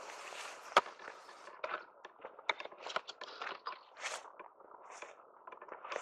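Footsteps crunching on a dry dirt and grass track, a crunch about every half second, with one sharp loud snap about a second in.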